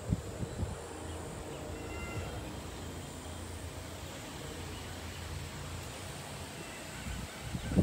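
Rural outdoor ambience: a steady low rumble of wind, with a few faint short bird chirps and a thin, steady high insect drone.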